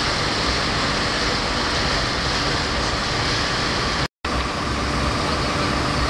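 Steady engine hum and rushing noise of a passenger riverboat under way. The sound cuts out briefly about four seconds in.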